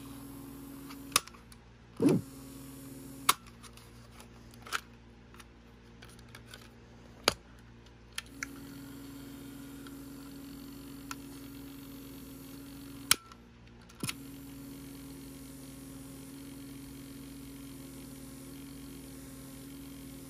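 Small drive motor of a Philips AQ6492 personal cassette player running with a steady low hum that stops and restarts several times, broken by about eight sharp plastic clicks from its buttons and cassette door. The motor turns but the pinch roller slips so the tape does not play, which the owner puts down to a loose drive belt.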